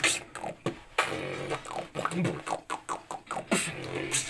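Human beatboxing: a quick rhythmic run of mouth-made drum sounds (clicks, hits and hissing hi-hat-like sounds) with short hummed tones woven between them.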